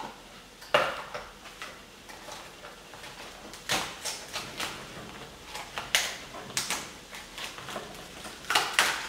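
Kitchen knife cutting and prying at a lobster's hard shell on a wooden cutting board: irregular sharp clicks and cracks of blade on shell and board.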